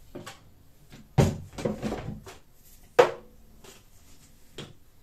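Plastic containers and jars being picked up and set down on a kitchen counter: a series of irregular knocks and clatters, the sharpest about three seconds in.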